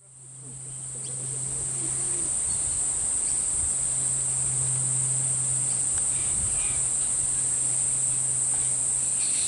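Steady high-pitched drone of cicadas, fading in over the first two seconds, with a steady low hum underneath.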